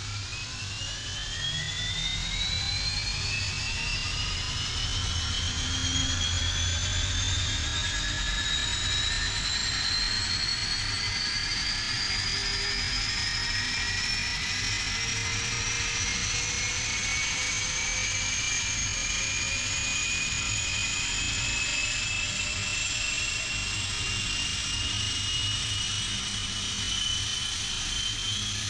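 Airliner jet engines spooling up for takeoff: a turbine whine that climbs steadily in pitch over a low rumble, building in the first two seconds and then holding loud.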